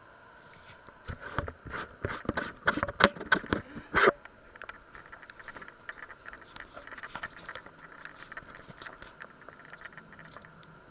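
Camera handling noise: a burst of knocks and clicks lasting about three seconds as the camera is picked up and moved, the loudest two knocks near the end of the burst, then faint scattered clicks. A faint steady whine runs underneath.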